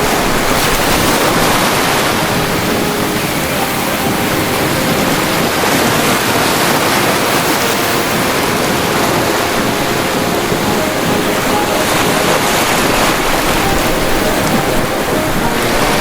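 Ocean waves breaking on the shore: a continuous rush of surf, fairly even in level throughout.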